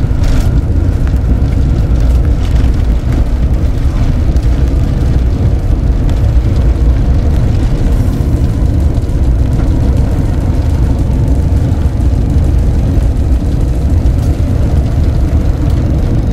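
Steady, loud low rumble of an Airbus A350-900 airliner, unbroken and without sudden events.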